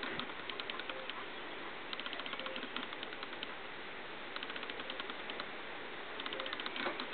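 About four short bursts of rapid, even clicking, each lasting under a second, over a steady hiss.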